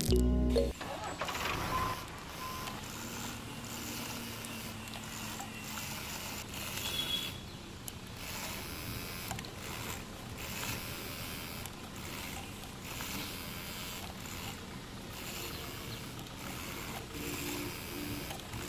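Small electric motor of a homemade model tractor running steadily, after background music cuts off just after the start.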